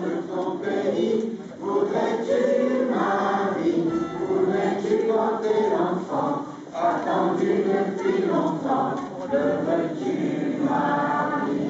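A choir singing a hymn, sung phrases with long held notes.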